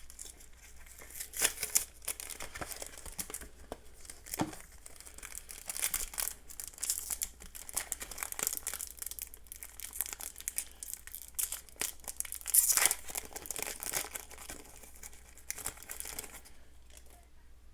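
Foil Yu-Gi-Oh! booster pack wrapper crinkling and tearing as it is opened by hand, in irregular crackles with the loudest rips about a second and a half in and again about twelve and a half seconds in.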